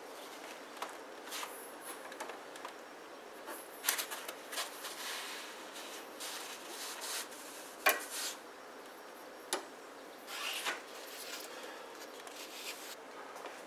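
Copper refrigerant line-set tubing being hand-bent and handled against the plastic back of a mini-split indoor unit, with foam insulation rubbing over it: intermittent rubbing and rustling broken by a few sharp clicks, the sharpest about eight seconds in.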